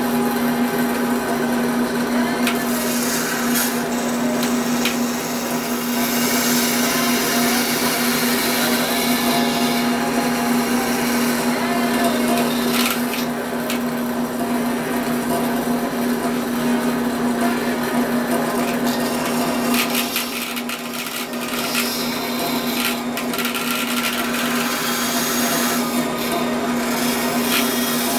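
Bandsaw running with a steady motor hum while its blade cuts through material, giving a hissing cutting noise that swells and fades in stretches.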